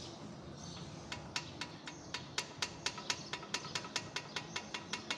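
Aftermarket front brake pads knocking in the caliper of a Hyundai HB20, a rapid series of sharp clicks, about five a second, starting about a second in. The pads lack the backing shim that takes up the caliper's play, so they rattle, a noise mistaken for a front suspension fault.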